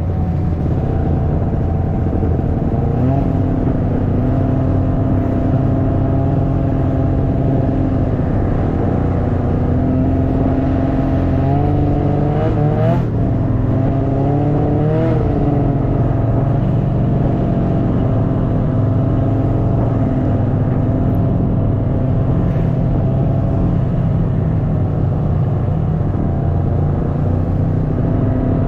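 Snowmobile engine running steadily at speed, its pitch rising and dipping a few times near the middle of the run as the throttle changes.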